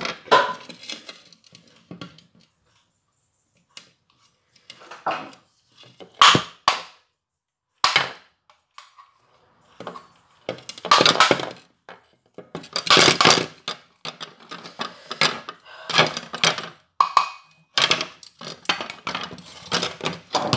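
Plastic and metal parts of a stick vacuum's motor assembly being handled and knocked about: irregular clatters, knocks and scrapes with short pauses between, and a couple of longer scraping rasps about halfway through.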